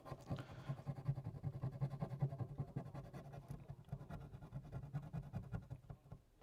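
Rapid scrubbing strokes scraping old screen adhesive off a phone's frame, a quick, even run of rubbing scrapes that stops near the end.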